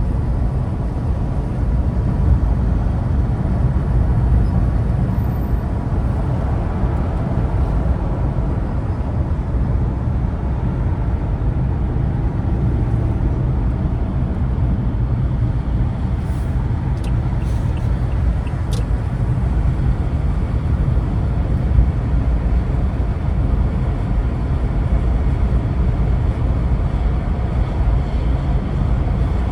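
Steady low rumble of a car driving in slow traffic: engine and road noise. A few faint ticks come about two-thirds of the way through.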